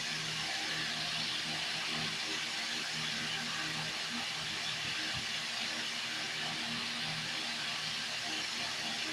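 Steady hiss of a running aquarium pump and its water, with faint low tones coming and going underneath.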